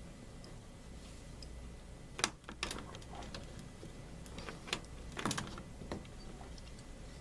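A handful of short sharp clicks and light rattles, bunched together about two seconds in and again around five seconds in, from binder clips being handled and clamped onto the edge of a fabric tapestry.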